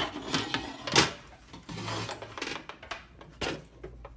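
Metal clatter and scraping of an electric oven's heating element and its clip being worked by hand inside the oven cavity, with a sharp knock about a second in and irregular clicks after.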